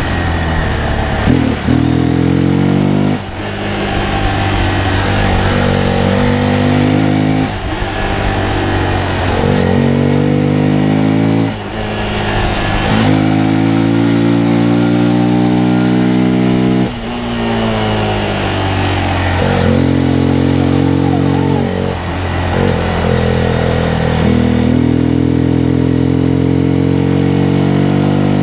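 Hero Xpulse 200's single-cylinder engine under way. Its revs climb and then drop sharply several times as it goes up through the gears, with one long pull of several seconds in the middle.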